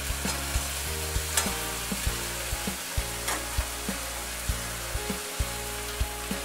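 Sliced onions sizzling steadily in hot oil in an aluminium kadai, being fried until reddish-brown, with sharp ticks and taps about once or twice a second.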